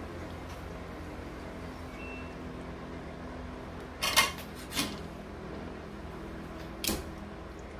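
A silicone spatula stirring chicken pieces in sauce in a stainless steel skillet, with a quick cluster of sharp clacks of the utensil against the pan about four seconds in, then single knocks near five and seven seconds. A steady low hum runs underneath.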